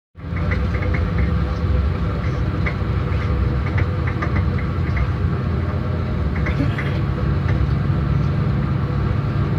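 Steady low hum of a moving vehicle: engine and road noise. Small, light clicks or rattles come through it now and then.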